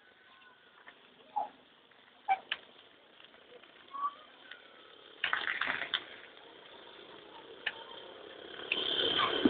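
Quiet street ambience with a few short chirps and clicks and a brief rattle about five seconds in; near the end a motorized tricycle's engine grows steadily louder as it approaches.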